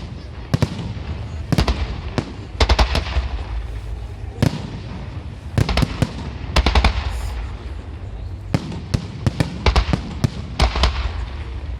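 Fireworks salute going off: bunches of sharp bangs and crackles every second or two, over a steady low rumble.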